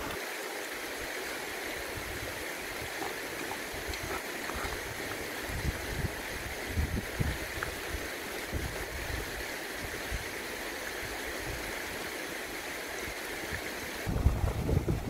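Steady rush of a shallow rocky river, with gusts of wind buffeting the microphone now and then, heavier near the end.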